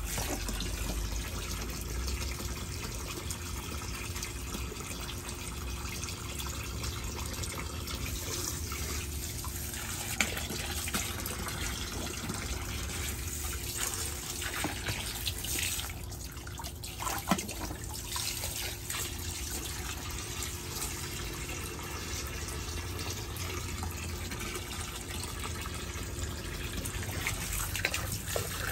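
Water pouring steadily from a garden hose into a shallow inflatable paddling pool, splashing onto the water and a child's hands. Two brief sharp knocks stand out, about ten and seventeen seconds in.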